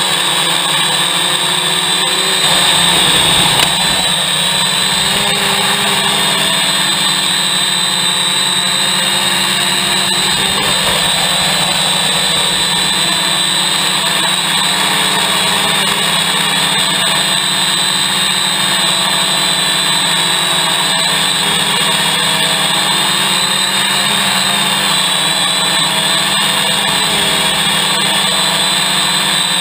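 Hexacopter's six electric motors and propellers running steadily in flight, heard from on board the craft: a constant high whine over a steady hum, with a brief louder rush about three seconds in.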